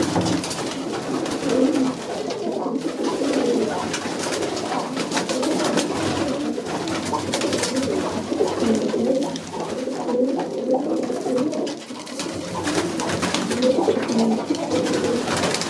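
A loft full of Vienna high-flyer pigeons cooing continuously, many birds overlapping, with frequent light clicks and scratches mixed in.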